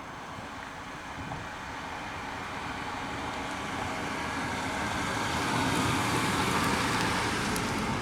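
1993 Chevrolet Caprice station wagon driving, with engine and road noise growing gradually louder as it approaches.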